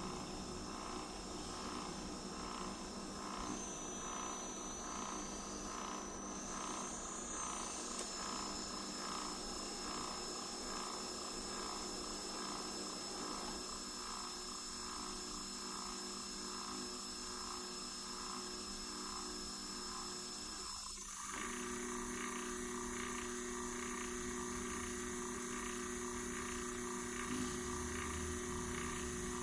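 Chinese 5-axis CNC machine running, a steady high whine over a regular pulsing motor tone. The tones shift about seven seconds in and change abruptly about twenty-one seconds in, as the machine's motion changes.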